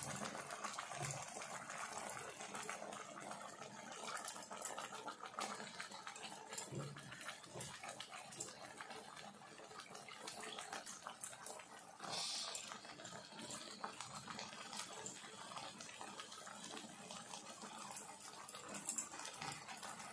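Mashed greens and potato sticks cooking in a kadai, a faint steady sizzle and bubbling with small clicks and scrapes of a metal spatula. A louder hiss rises about twelve seconds in.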